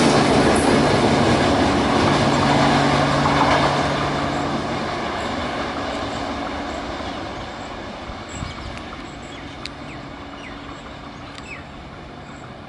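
Express train rolling along the track and moving away, its rail-and-wheel rumble fading steadily. A few faint sharp ticks come in the last few seconds.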